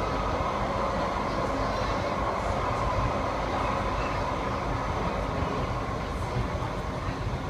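TriMet MAX light rail car running along the track at speed, heard from inside the car: a steady rumble with a continuous whine.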